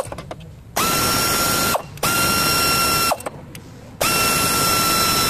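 Power ratchet running in three bursts of about a second or more each, with a steady high whine over a rushing noise that rises as each burst starts and drops as it stops, working a bolt at the timing-chain end of an engine.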